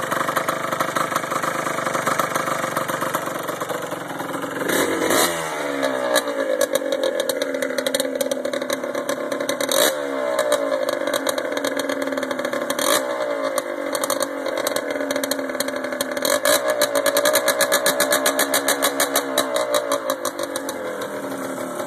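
1994 Yamaha Blaster's two-stroke single-cylinder engine running through a DG full exhaust with its spark arrestor and baffles gone, basically a straight pipe: pretty loud. It idles and is blipped, revving up sharply about five, ten and thirteen seconds in and falling back each time, then is held at higher revs for a few seconds near the end.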